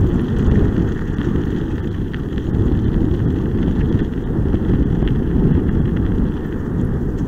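Steady low rumble of wind on the microphone mixed with a kickbike rolling over a dirt and gravel trail.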